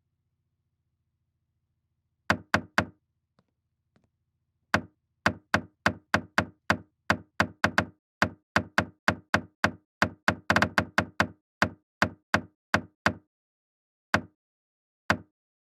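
Knocking: three quick knocks, a short pause, then a long run of sharp knocks at about two a second with a fast flurry in the middle, and two last single knocks near the end.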